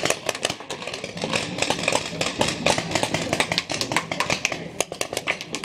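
Paintball markers firing during a game: a rapid, irregular stream of sharp pops, several a second.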